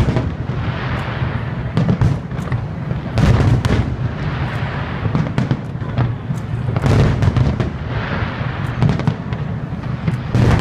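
Aerial firework shells bursting in a continuous barrage: repeated deep booms, several a few seconds apart and some in quick clusters, with crackling and hissing between them.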